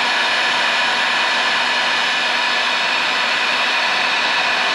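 Electric heat gun running, its fan blowing a steady rush of hot air with a faint hum, used to shrink a heat-shrink wire connector.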